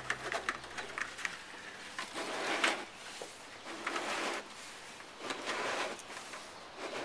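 Hands working on parts: a few sharp clicks, then three scraping, rubbing bursts.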